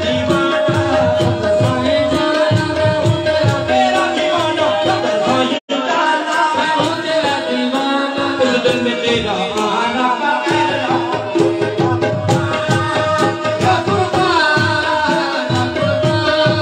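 Qawwali music: singing over tabla with a steady drum rhythm. The sound cuts out for an instant about five and a half seconds in.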